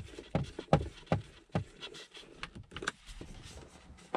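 Hand screwdriver turning the gauge cluster's mounting screws into their plastic threads: a run of short clicks and scrapes, about two or three a second at first, then fewer and fainter.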